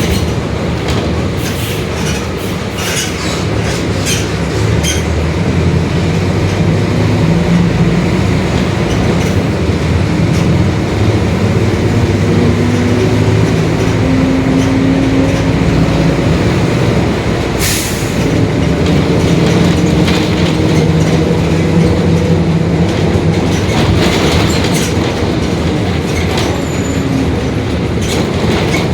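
Mercedes-Benz OF-1721 Bluetec 5 city bus under way, its diesel engine running and the differential growling, in hums that slowly rise and fall in pitch with speed. Scattered knocks and rattles from the body.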